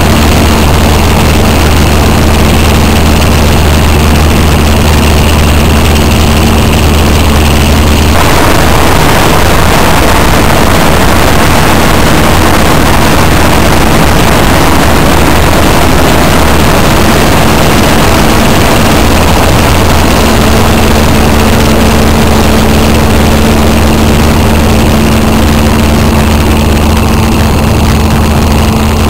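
Heavy farm machine's engine running steadily and loudly under working load, with a strong low drone and mechanical noise. The sound shifts abruptly about eight seconds in and again around twenty seconds, as from cuts between machines.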